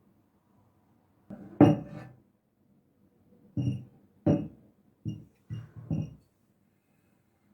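A series of knocks and clinks as kitchen items are handled and set down on a hard surface: about six separate strikes, the loudest near the start and the rest spread over the next few seconds.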